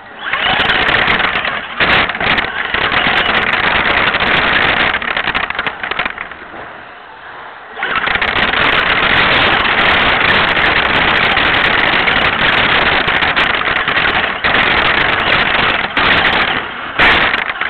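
Remote-control car driving over rough, dusty concrete, heard from a camera riding on it: a loud, even noise of motor, gears and wheels, with sharp clicks and knocks from the ground. It drops away for about two seconds around the middle, then picks up again.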